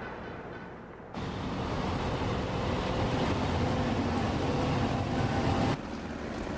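Motor vehicle engine running steadily under a rushing travel noise. The sound steps up abruptly about a second in and drops again near the end, as the shots change.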